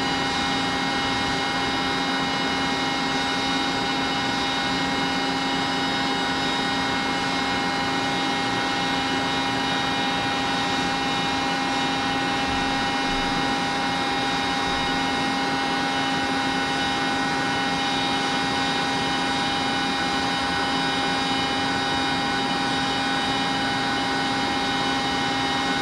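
Steady mechanical hum with several fixed tones from a materials testing machine running through a compression test. No cracks or snaps stand out.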